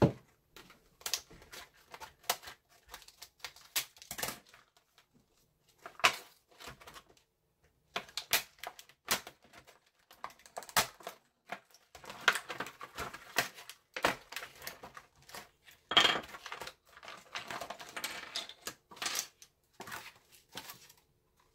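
A stiff plastic blister pack being cut with scissors and pulled apart by hand: irregular snips, crackles and sharp clicks, with small wooden parts knocking on a desk.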